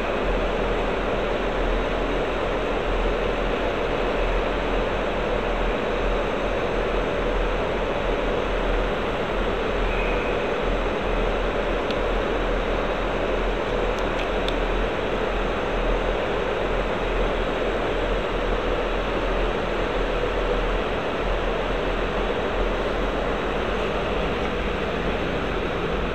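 Steady rumble and hum of a diesel train standing at the platform with its engine idling.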